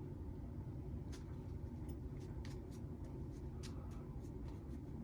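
Light handling noise: scattered small clicks and ticks, irregular, over a steady low background hum.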